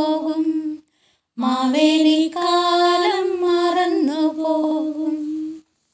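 Women singing a Malayalam Onam song unaccompanied, in long held notes. The singing breaks off briefly about a second in, then resumes with a final held line that stops shortly before the end.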